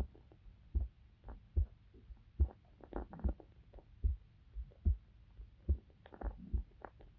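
A human heartbeat heard through a microphone held against the chest: steady low lub-dub thumps, about 75 beats a minute. A few brief higher noises sit over it, about three seconds in and again near six seconds.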